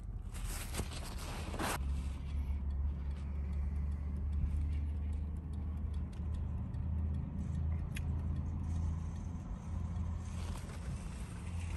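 A car engine idling, heard from inside the cabin as a steady low hum. Near the start there is a brief rustle, lasting about a second and a half.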